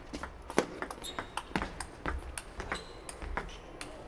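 Table tennis rally: the ball clicking sharply off the paddles and the table in quick alternation, about four to five clicks a second.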